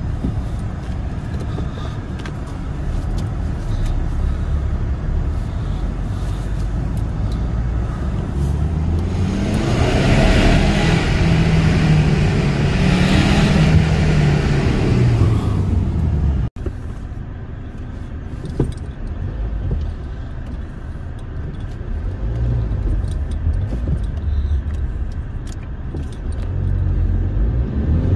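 The 2-litre four-cylinder turbodiesel of a BMW 320d E90 with a Supersport sport exhaust, heard from inside the cabin while driving. About ten seconds in, the engine and exhaust note grows louder, rising and then falling in pitch, as the car passes through a concrete underpass. After a sudden break it runs more steadily, and it rises again near the end as the car accelerates.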